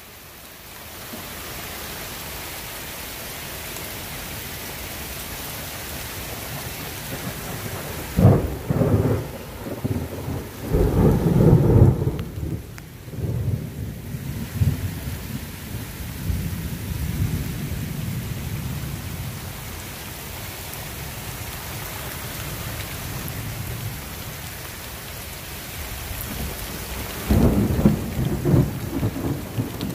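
Heavy rain falling steadily through a thunderstorm. About eight seconds in, a sudden peal of thunder rumbles on for several seconds, and another rumbling peal begins near the end.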